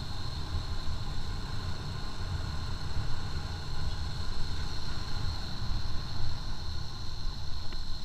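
Six-speed sport motorcycle's engine running steadily while cruising in fourth gear, heard from a camera mounted on the bike. A steady high-pitched whine runs alongside it.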